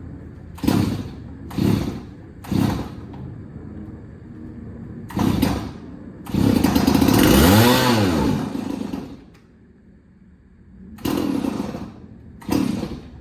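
Stihl 024 two-stroke chainsaw being pull-started, catching in short bursts. It then runs for about three seconds on starting fluid, its pitch rising and falling away as it dies, followed by two more short bursts near the end. It runs only on starting fluid because a broken fuel line keeps gas from reaching the carburetor.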